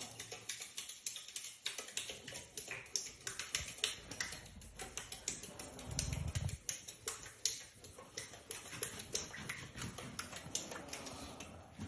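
Pomsky puppy playing at its water bowl, lapping and pawing the water: rapid, irregular small splashes and clicks, with a short low thump about six seconds in.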